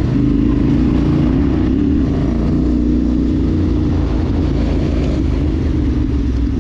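Vehicle engine running steadily at an even pitch over a low rumble.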